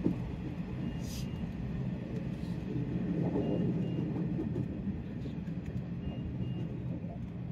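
Nishitetsu electric commuter train running on the rails and slowing into a station, a steady low rumble from the running gear that swells briefly midway. Faint short high beeps come in pairs every couple of seconds over it.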